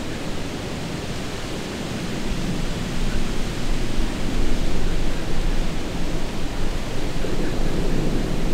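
Wind noise on the microphone: a steady low rushing that swells and dips, getting louder about three seconds in.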